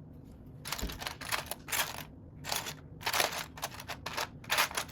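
Loose plastic Lego pieces clattering as they are picked through by hand, in a series of short rattles about every half second.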